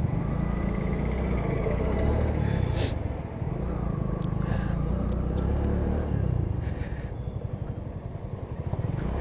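Bajaj V15's single-cylinder engine running while the motorcycle is ridden. Its drone eases off about two-thirds of the way through as the rider slows.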